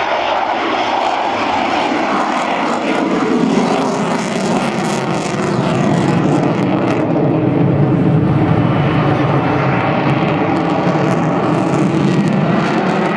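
Piston engines of propeller-driven aerobatic aircraft, The Blades' Extra 300s, running at high power as they fly; the drone grows a little louder about halfway through.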